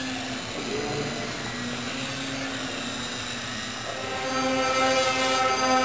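Electric motor and propeller of a small indoor radio-controlled model airplane, a steady whine that gets louder about four seconds in.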